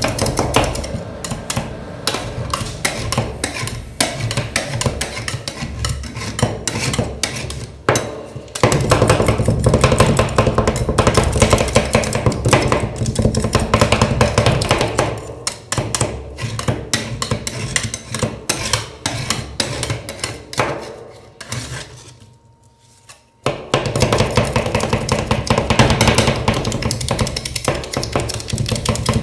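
Metal spatulas chopping and scraping ice cream mixture on a frozen steel cold plate: rapid, uneven metal clacks and scrapes. They stop for about a second near the end, then start again.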